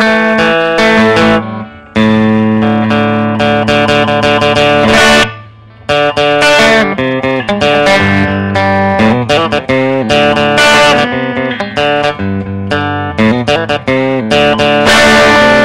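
Telecaster-style electric guitar played through an amp on its bridge pickup, a Guitar Fetish Neovin noiseless single-coil, strumming chords and picking short lines with a bright, twangy tone. The playing stops briefly about five and a half seconds in, then carries on.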